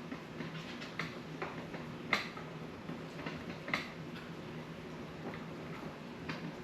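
Motorized rod-wrapping machine turning a fishing rod slowly as thread is wound onto a guide foot: a steady low motor hum with irregular light clicks.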